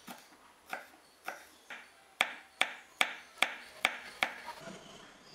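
Kitchen knife slicing green chillies on a wooden cutting board: about ten sharp knocks of the blade on the board, roughly two to three a second, louder in the second half.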